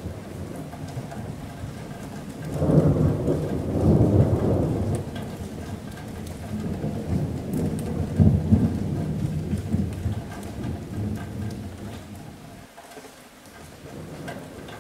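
Steady rain with a long roll of thunder. The thunder rumbles in about two and a half seconds in, swells again a few seconds later, and dies away near the end.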